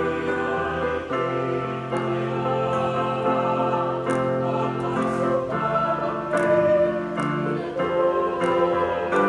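Small mixed choir singing a hymn in parts, with long held chords that change every second or so.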